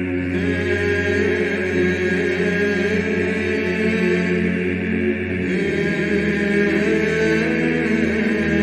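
Byzantine chant sung a cappella by a choir: a melody line over a held low drone (the ison), in the long, washing reverberation of Hagia Sophia's acoustics recreated electronically. The low drone drops out about five and a half seconds in and returns a second later.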